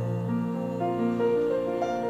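Instrumental keyboard music with no singing: held chords under single notes that step upward in pitch.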